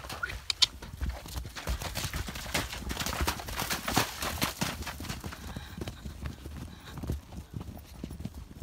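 Hooves of several horses trotting and cantering over wet, muddy pasture: a quick, irregular run of thuds.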